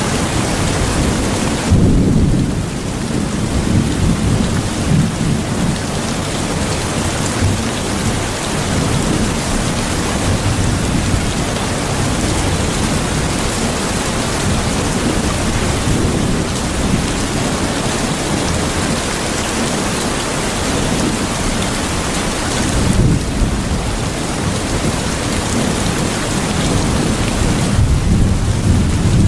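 Steady heavy rain falling, with low rolls of thunder rumbling under it about two seconds in, again later on, and near the end.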